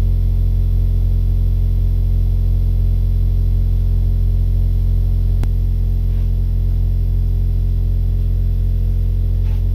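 Steady, loud low hum of a 44 Hz sine tone from a phone tone generator, played through a stereo speaker under a piano soundboard and driving the board in its first vibration mode. One faint click about halfway through.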